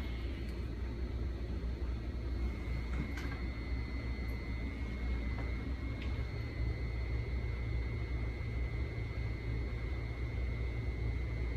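Budd M2 railcar's onboard ventilation and electrical equipment running while the car stands, a steady low hum with a thin high-pitched whine held over it. A couple of faint ticks come through about three and six seconds in.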